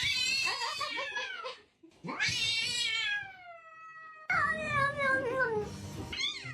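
A cat meowing loudly in drawn-out yowls: three long calls, the second held longest and falling in pitch, then a short rising meow near the end.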